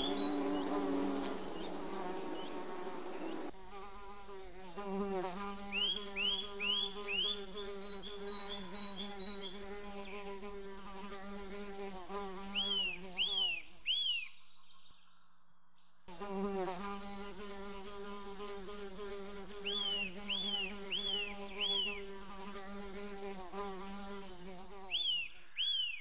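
Buzzing of a flying insect: a steady drone with a slightly wavering pitch, with short bird chirps in quick runs of three or four every few seconds. The buzz drops out for about two seconds a little past halfway. For the first three or so seconds a louder, fuller sound plays over it.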